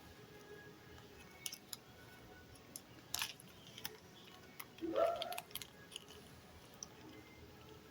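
Small clicks, taps and rustles of a package and an LED bulb being handled during unboxing, with a short rising squeak about five seconds in.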